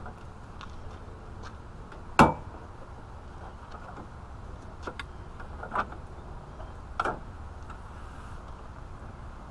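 Plastic grille clips on a 2004 Chevrolet Silverado snapping as the grille is tugged loose: one sharp, loud snap about two seconds in, then three smaller snaps and a few light clicks.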